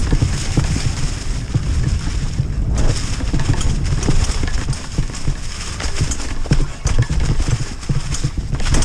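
Brodie Libido freeride mountain bike rolling fast down a leaf-covered dirt trail, its tyres running over leaves, rocks and roots, and the bike knocking and rattling many times at irregular intervals. A steady low rumble sits under it all.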